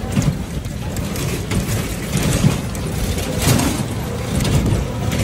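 Rickshaw rattling and clicking while being ridden along a road, over a steady low rumble.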